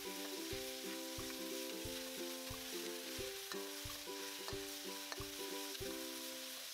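Beef and sauce sizzling in a hot iron wok while a metal wok spatula stirs and scrapes through it, a steady frying hiss with a soft stroke at each pass. Quiet background music with held notes runs underneath.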